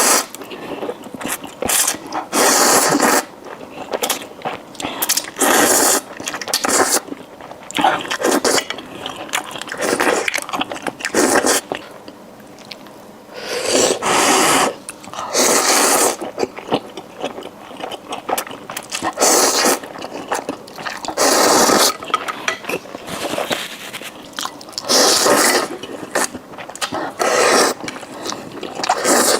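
Close-miked eating sounds: bites, chewing and slurping, with utensils scraping, coming in irregular bursts every second or two.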